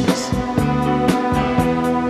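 A live rock band playing an instrumental passage with no vocal: held chords over a steady drum beat with hits about four times a second.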